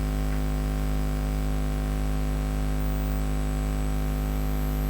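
Steady electrical mains hum with a stack of overtones over a faint hiss, unchanging throughout.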